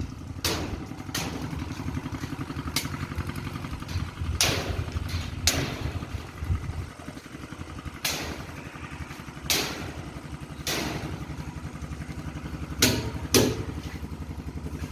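A small engine running steadily, with about ten sharp knocks or clacks at irregular intervals over it.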